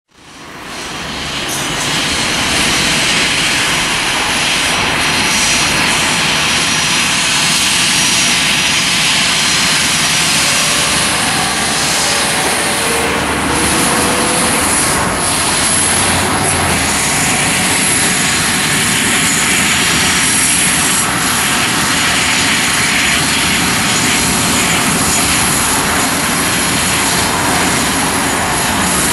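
Boeing 737-300's CFM56-3 jet engines running steadily while the airliner taxis on the runway. The sound is a loud, even jet rush with a thin high whine, fading in over the first second or two.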